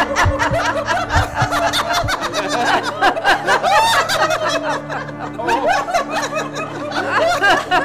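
Several people laughing together, overlapping chuckles and snickers, over a steady background music drone.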